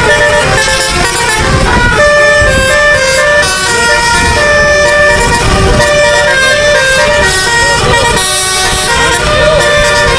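A bus's telolet multi-tone musical air horn playing a tune of held notes that step from pitch to pitch, over a low rumbling noise.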